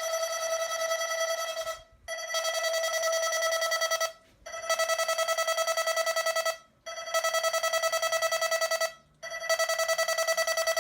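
Weather radio's alert siren sounding during a siren test: a single high, rapidly pulsing tone in bursts of about two seconds with short breaks between them, five bursts in all.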